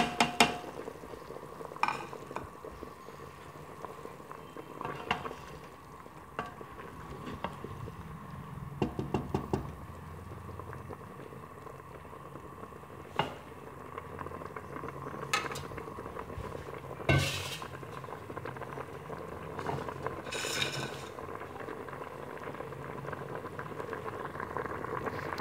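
Spiced chicken broth bubbling at a boil in an open pressure cooker, with a spoon knocking and clinking against the pot now and then as the chilli and turmeric are stirred in.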